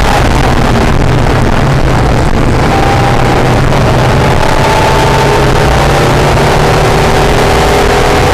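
Acura NSX's mid-mounted V6 heard onboard at speed on a race track, loud, its note rising steadily from about three seconds in as the car accelerates, over a heavy rumble of wind and road noise on the microphone.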